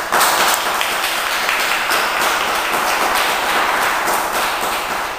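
A small group applauding: a dense patter of hand claps that starts suddenly and begins to die away near the end.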